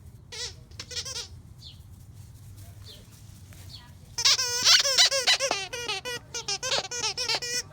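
A dog whining in high, wavering cries: two short ones in the first second, then a long, loud run of whines from about four seconds in.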